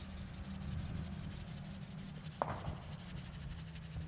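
Soft rubbing of a paper seed packet as carrot seeds are sprinkled by hand into the soil, with a single click about two and a half seconds in, over a faint steady low hum.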